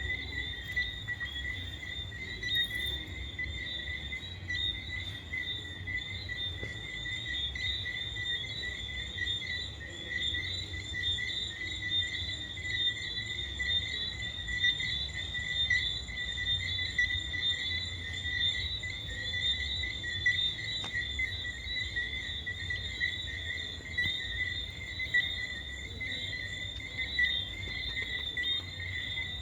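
Night chorus of crickets trilling without a break in a steady, high-pitched chirr, with a low rumble underneath.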